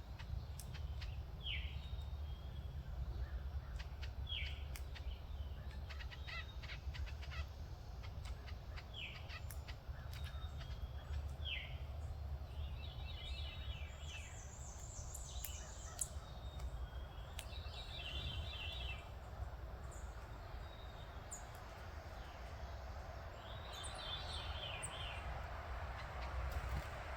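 Backyard birds calling: short downward-slurred notes repeat every second or two, then come a few harsh, raspy calls, over a steady low rumble.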